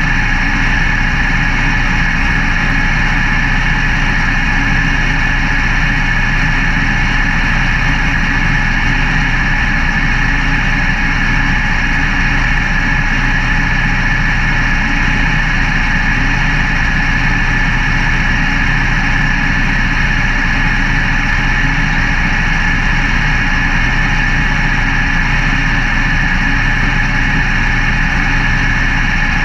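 Race car engine idling steadily, heard from inside the cockpit.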